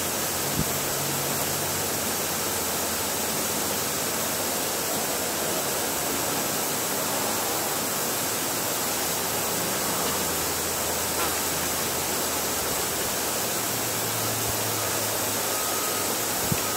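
Steady, even rushing hiss with no distinct events in it.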